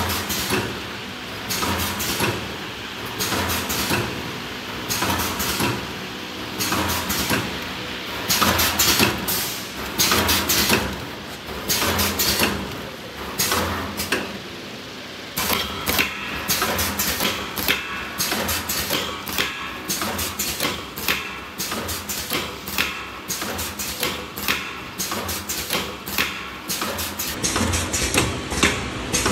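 Vertical stick-pack packaging machine running, its filler and sealing mechanism clacking in a fast, regular cycle over a steady machine hum.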